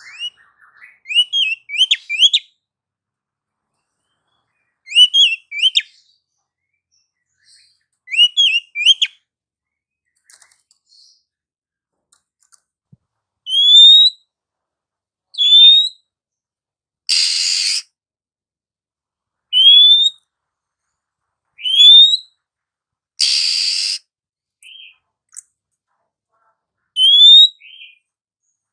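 Female Oriental magpie-robin calling. First come three short runs of quick rising chirps. From about midway it gives single upward-sweeping whistles every couple of seconds, broken twice by a harsh rasping call about a second long.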